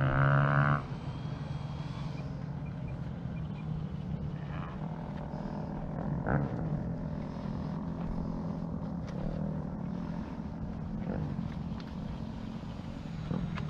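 Electric RC P-39 warbird model flying at a distance, its motor and propeller a faint, steady hum, with a short louder swell about six seconds in. A louder steady hum in the first second cuts off suddenly.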